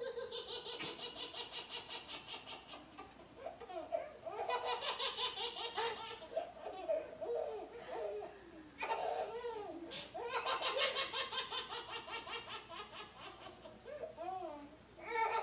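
A baby belly-laughing in long fits of quick, repeated pulses, with a woman laughing along; the laughter breaks off briefly three times.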